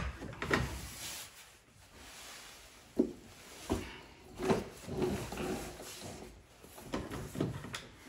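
Plastic clicks and knocks of a 7-pin trailer plug housing being worked loose from a pickup's rear bumper, a handful of separate knocks spread through it.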